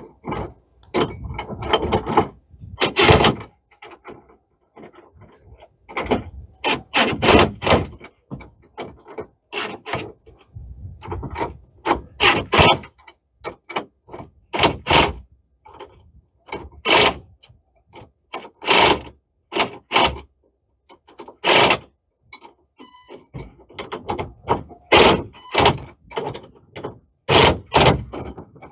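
Cordless driver with a socket adapter running in many short bursts, snugging up carriage bolts on a metal door bracket.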